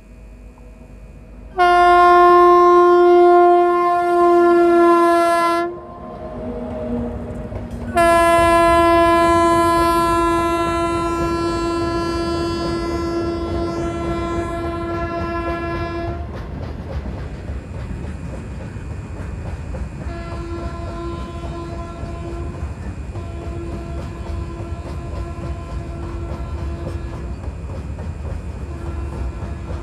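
Horn of a WAG-9 electric locomotive sounding two long blasts, the second held for about eight seconds. Then the steady rumble and clatter of a freight train of empty BOXNHL open wagons running past at speed.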